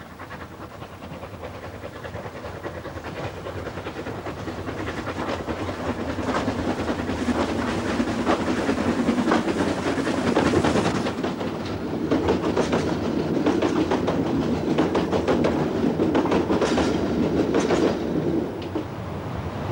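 A steam train running on the Isle of Man's narrow-gauge railway: a rhythmic clatter of wheels and working that grows louder over the first eight seconds or so as it approaches, stays loud, and eases a little near the end.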